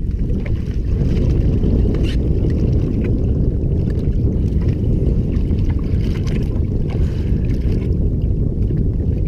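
Wind buffeting the camera microphone: a steady low rumble, with a few faint taps over it.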